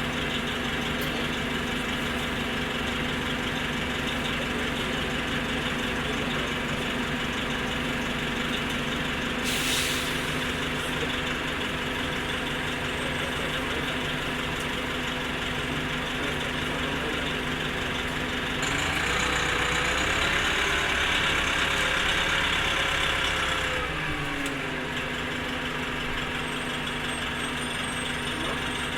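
Orion V transit bus's diesel engine running steadily, with a short hiss of air about ten seconds in. About two-thirds of the way through, the engine runs louder for some five seconds, its pitch rising, holding and then dropping back to the steady drone.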